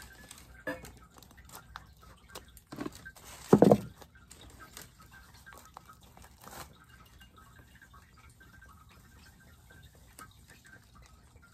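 Paper wrapping rustling and crinkling as a packaged plant is unwrapped by hand, with a brief louder burst of handling noise about three and a half seconds in.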